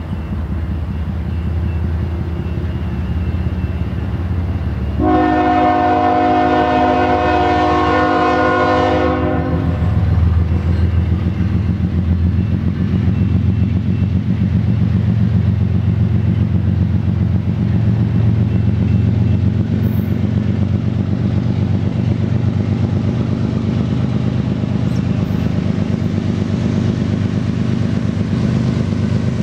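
Diesel freight locomotive (CN 2883, a GE ES44AC) approaching at low speed with its engine rumbling steadily, under power with exhaust smoke showing. About five seconds in it sounds one long blast of its chord horn, several notes together, lasting about four seconds; after that the engine rumble grows louder as the locomotive draws alongside.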